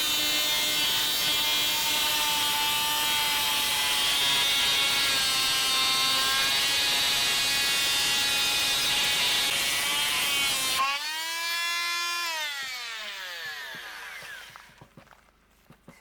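Electric saw cutting aluminum bar stock: a steady high whine with rasping cutting noise. About eleven seconds in the cut ends abruptly, and the blade's whine falls away over a few seconds as it spins down.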